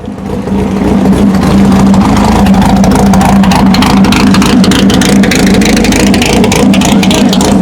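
Drag-racing air-cooled VW Beetle engine running loud and held at steady revs, with a crackling edge. It fades in over the first half second.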